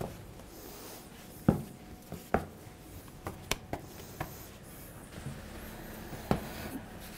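Balls of bread dough being set down and patted by hand onto a floured wooden board: soft, dull thumps at irregular intervals with lighter taps between, the loudest about a second and a half in.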